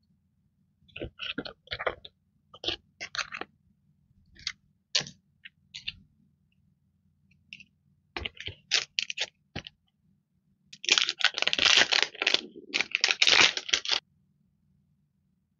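Clear plastic sticker packaging crinkling as it is handled: scattered short crackles, then about three seconds of dense crinkling as a sticker sheet is pulled from its plastic sleeve.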